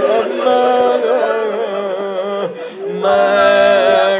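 A man's voice in a drawn-out, sung lament: a majlis orator wailing the masaib, the mournful chanted telling of a martyrdom, on long held notes with a wavering pitch. The voice drops away briefly about two and a half seconds in, then comes back louder.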